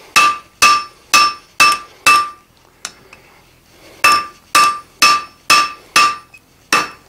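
Hand hammer striking a red-hot steel bar on an anvil, about ten blows at roughly two a second with a pause of about two seconds in the middle. Each blow rings with a clear, bell-like anvil tone.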